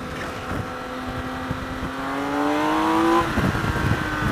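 BMW K1600 GT Sport's inline-six engine accelerating hard, its pitch climbing steadily for about three seconds, then dropping sharply at an upshift and starting to climb again.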